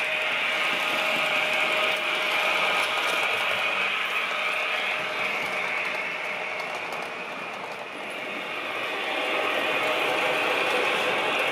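Märklin H0 model BR 103 electric locomotive with digital sound, running with its coaches on the layout: a steady mechanical running noise from the motor, wheels on the track and the sound module, with a steady hum under it. It grows fainter around eight seconds in and then comes back up.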